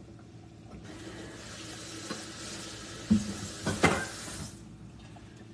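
Kitchen faucet running into the sink for about four seconds, starting about a second in and shutting off near the end, with a couple of sharp knocks partway through.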